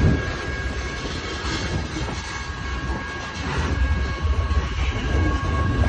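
Tank cars of a Union Pacific freight train rolling past at a grade crossing: a steady low rumble of steel wheels on rail, easing a little in the middle and building again near the end, with thin steady high tones over it.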